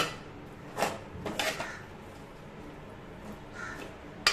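Metal ladle stirring soaked sago pearls and potato in a metal pan, scraping and clinking against the pan. A few sharp clinks come in the first second and a half and again at the end, with quieter scraping in between.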